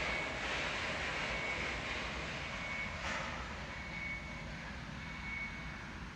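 Steady whirring machine noise, with a short high beep repeating about every second and a quarter, like a reversing alarm.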